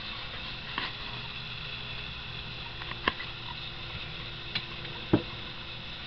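A few light clicks and knocks from a metal Evinrude/OMC Simplex two-lever remote control box being handled and turned over, over a steady background hiss; the sharpest knock comes near the end.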